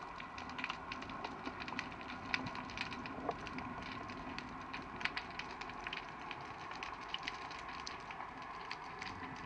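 Underwater ambience over a reef: irregular, sharp crackling clicks scattered throughout, over a faint steady hum.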